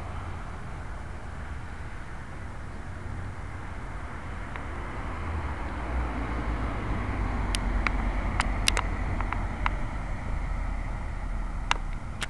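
Street traffic: a steady low rumble of passing cars that swells in the middle, with a handful of short sharp clicks in the second half.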